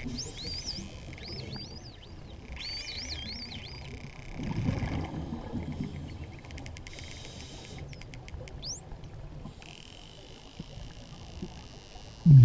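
False killer whales whistling underwater: a quick run of rising and falling whistles in the first few seconds, then rapid click trains and one more rising whistle about nine seconds in. A low rush of noise comes about five seconds in, and a louder one near the end.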